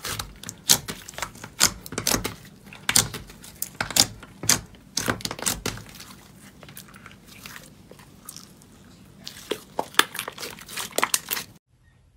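Translucent gold glitter slime being stretched, folded and squeezed by hand, giving irregular sharp pops and crackles as air trapped in it bursts. The popping thins out midway, picks up again, then cuts off suddenly near the end.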